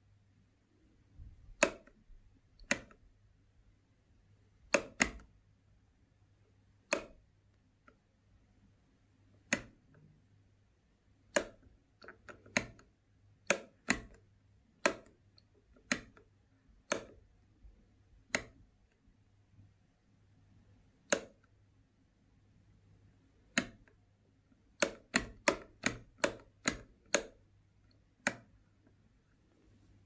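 Wide rocker wall light switch clicked on and off by a fingertip: sharp, separate plastic clicks at irregular intervals, mostly a second or two apart, with a quick run of about seven clicks near the end.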